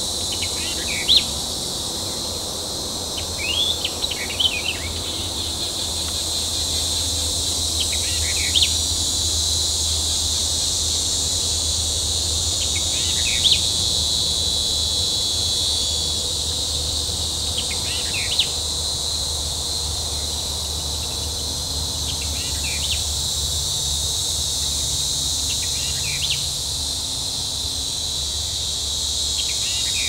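Steady high-pitched chorus of insects, with a bird giving a short call about every four seconds.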